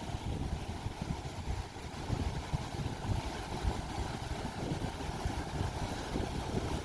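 Ocean surf washing on a sandy beach, with wind rumbling on the microphone.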